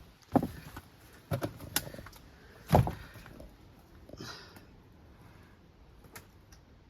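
A handful of sharp knocks and thuds, the loudest nearly three seconds in, then a brief scrape about four seconds in.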